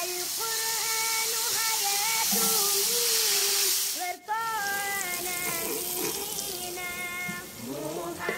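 Background vocal music: one voice singing long held, gliding notes. Under it, a hiss of oil sizzling in a cast-iron skillet runs until about four seconds in, then stops abruptly.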